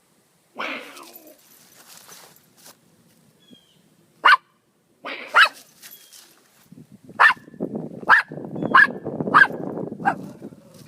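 A dog barking at a cat, about seven sharp single barks that come closer together in the second half, with low growling under the later barks.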